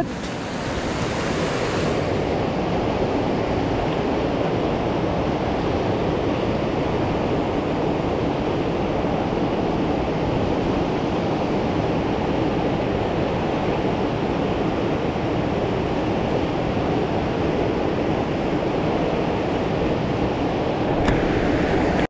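Steady rush of a fast, churning river running in rapids, an even, unbroken sound of white water.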